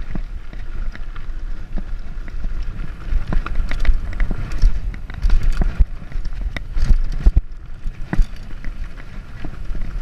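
Mountain bike descending a rough dirt trail at speed: wind rumbling on the microphone, with frequent sharp clatters and rattles from the bike over bumps.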